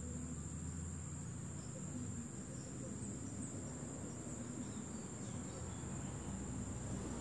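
A steady, high-pitched insect drone in one unbroken note, over a low background rumble.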